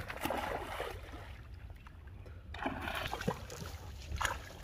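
Pond water splashing and sloshing as people wade through it and fish thrash at a gill net, in two spells, with a sharper splash near the end.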